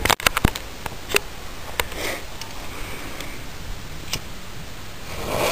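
Firework crackling as it burns out: a quick cluster of sharp pops at the start, then single pops spaced a second or more apart over a steady hiss.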